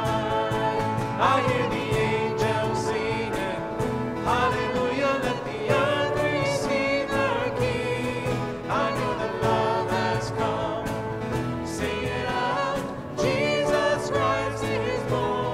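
Small worship band playing a slow song: voices singing sustained phrases over acoustic guitar, piano and upright bass.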